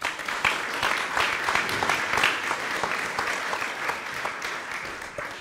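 Audience applauding, starting suddenly and slowly dying away near the end.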